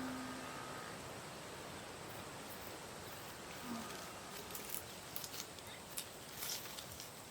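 Faint outdoor ambience: a steady even hiss, with a few light clicks and rustles in the second half. A held music tone fades out in the first second.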